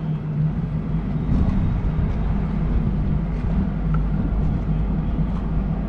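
A motor running steadily: a low, even hum with a rumble beneath it.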